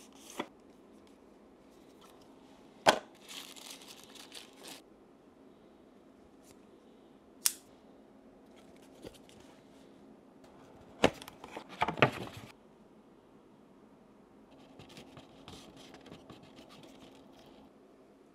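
A cigar being cut and handled: a few sharp snaps and clicks, the loudest about three seconds in, with short bursts of rustling and scraping between them.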